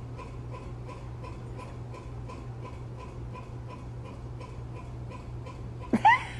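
Steady, even ticking like a clock, about three ticks a second, over a low hum. About six seconds in, a short, loud, high vocal sound rises and falls in pitch.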